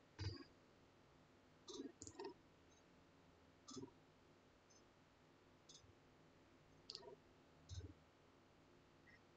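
Faint, short clicks, about eight scattered at uneven intervals, over near silence.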